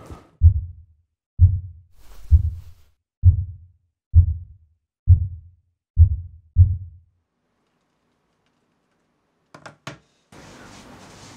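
Eight deep, dull thumps at a slow, steady pace, about one a second, each dying away quickly: a heartbeat-like sound effect laid over silence. After a pause, a couple of faint clicks come near the end.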